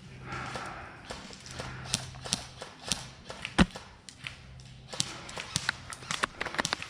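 Scattered sharp clicks and snaps of airsoft gunfire and BB impacts, irregular. One is louder about three and a half seconds in, and a quick run of them comes near the end.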